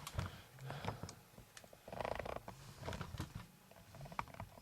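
Handling noise: scattered light clicks and knocks with a brief rubbing sound about two seconds in, as the model or camera is moved.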